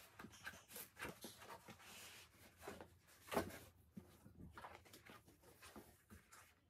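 Cardboard packaging being handled: faint rustles and light taps, with one louder knock about three and a half seconds in.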